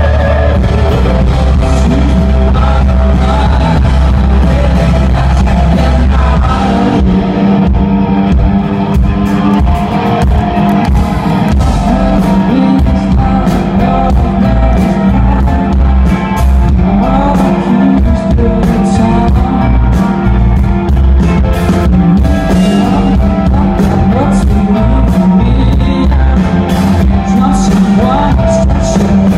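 Live rock band performance recorded from the audience: singing over electric guitar, bass and drums, loud and distorted. The deep bass line changes to a higher note about seven seconds in.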